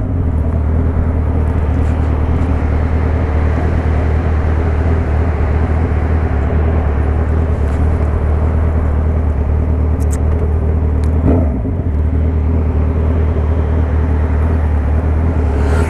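Motorcycle engine running steadily under way, heard from the bike itself with wind rushing over the microphone. The engine note drops briefly about eleven seconds in, then picks up again.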